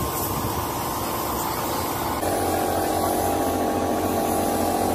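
A steady machine hum with a hiss over it. About two seconds in, the hum shifts abruptly to a different pitch and gets slightly louder.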